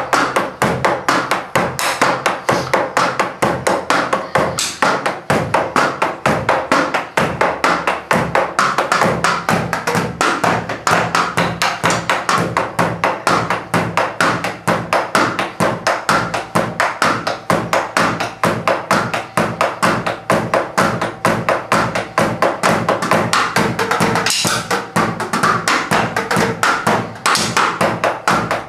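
Drumsticks striking the pads of an electronic drum kit in a steady, fast rhythm, heard only as the sticks' taps and thuds on the pads, since the drum sounds and the backing music go to headphones. The cooling fan of a laser light hums underneath.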